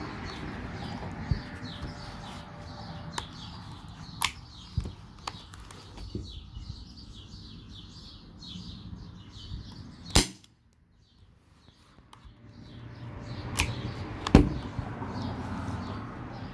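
CO2 airsoft revolver (WG C701) firing single shots at irregular intervals, with sharper, louder reports about ten and fourteen seconds in and lighter clicks between. Birds chirp faintly in the background.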